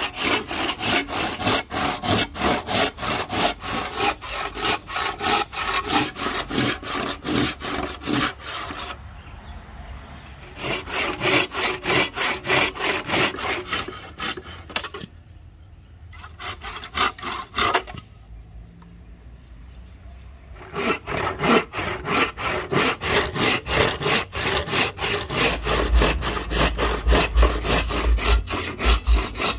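Hand saw cutting through rosewood in quick, steady back-and-forth strokes. The sawing stops briefly about nine seconds in and again for several seconds in the middle, then carries on.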